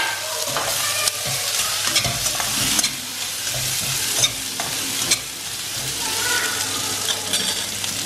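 Sliced onions sizzling in oil in a stainless steel kadai while being sautéed with a metal spatula, which scrapes and clicks against the pan now and then.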